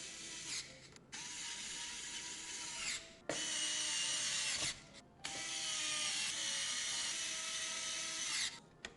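A small mechanism ratcheting and whirring in bursts of one to three seconds, each cut off abruptly with a short gap before the next.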